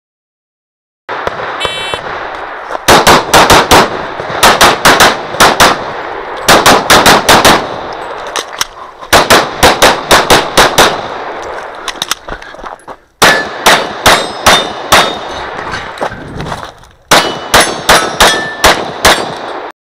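Glock 35 pistol in .40 caliber fired in fast strings of shots, several a second, in clusters with short pauses between them. A short electronic beep, like a shot timer's start signal, sounds about two seconds in, before the first string.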